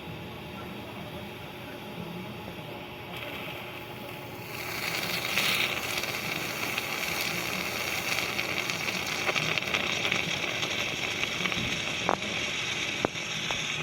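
A steady hiss of gas rushing through car air-conditioning service fittings starts about four and a half seconds in and keeps going, with a couple of sharp clicks near the end.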